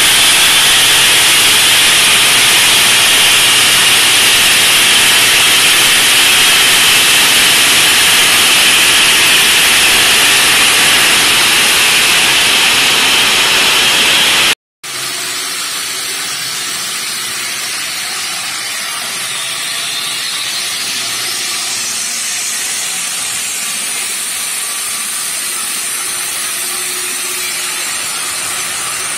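DAFON bridge saw's large diamond blade cutting through a granite slab, a steady grinding rush of blade on stone. About halfway it cuts out for a moment and resumes a little quieter.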